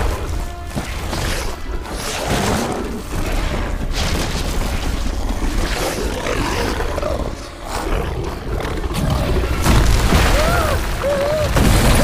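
Monster-movie action soundtrack: a dramatic score over heavy booms and low rumbling, with the roars of a giant creature attacking. A few short wavering cries come near the end.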